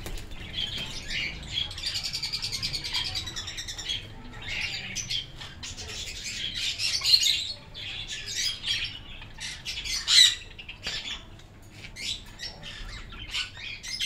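Caged ring-necked parakeets squawking and chirping: many short, harsh calls, with a quick run of chirps about two seconds in and the loudest squawks around seven and ten seconds in.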